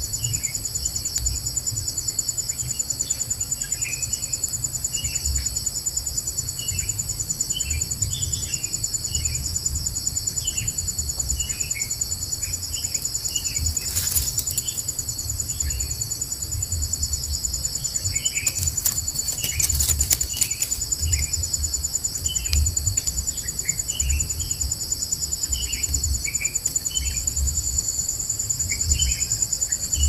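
Steady, shrill insect chorus with a continuous high whine. Over it, short falling bird chirps repeat every second or so, with a low rumble underneath and a few sharp clicks around the middle.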